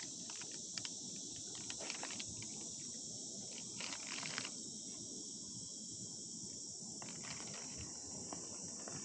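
Steady high-pitched insect chorus of crickets, with scattered short crackles and clicks over it, clustered about four seconds in and again near the end.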